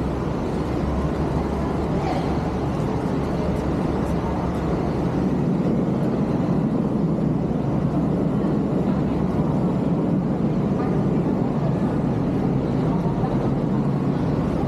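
Steady shopping-mall ambience: a low din of many distant voices blending together, with no single voice standing out.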